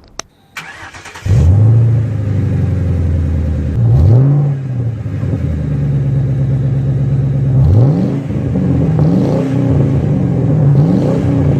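A car engine catches about a second in, then is revved again and again, its pitch rising and falling with each rev.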